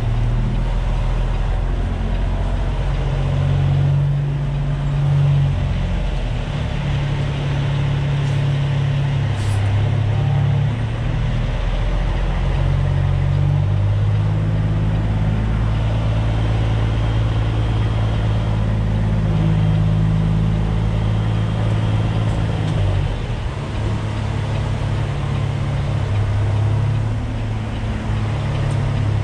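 Diesel engine of a semi truck running at low revs inside the cab, its note stepping up and down several times as the truck is maneuvered at low speed into a parking spot.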